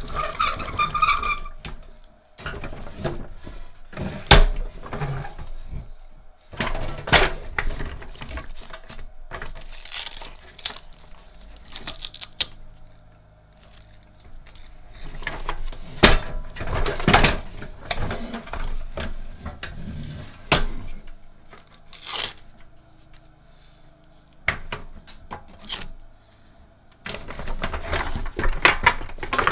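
Pressed-steel Tonka dump truck being handled and turned over on a cloth-covered table: irregular clunks, knocks and rattles of its metal body and tipper, with cloth rustling between them.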